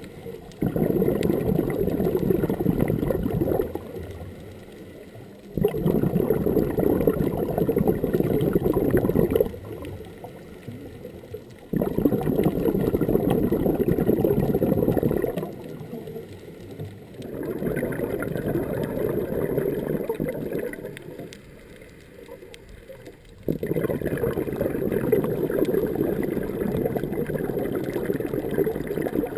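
Scuba regulator exhaust bubbles gurgling past an underwater camera housing, in five long rushes a few seconds apart with quieter gaps between, in the slow rhythm of a diver's breathing.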